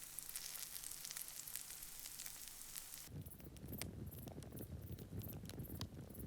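Campfire crackling and hissing, with many quick pops. About three seconds in, the sound changes abruptly to a lower, rumbling burn with fewer, sharper pops.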